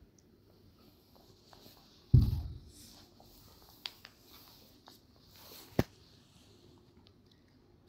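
Fabric rustling as a cloth cover is handled over a metal basin, with a heavy thump about two seconds in and a sharp knock about six seconds in.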